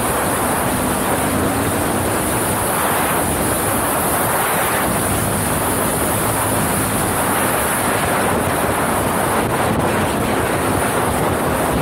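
Can-Am XMR 1000 ATV's V-twin engine running at a steady cruising speed, largely buried under heavy wind rushing over the microphone.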